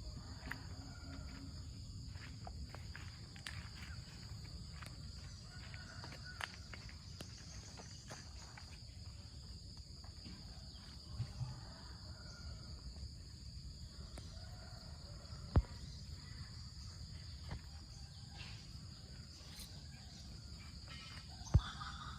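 Steady high-pitched chorus of insects, crickets or cicadas, over a low outdoor rumble. Two sharp knocks stand out, one about two-thirds of the way in and one near the end.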